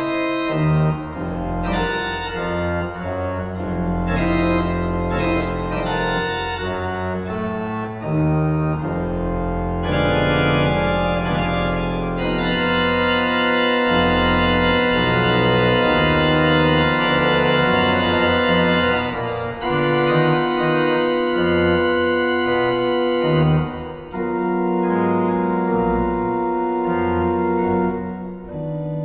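Pipe organ playing dense held chords over deep pedal notes, starting suddenly out of silence. The sound grows fuller and brighter for several seconds from about twelve seconds in.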